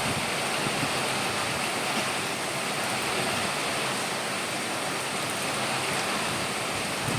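Steady rain falling, an even hiss with no gusts or distinct drops.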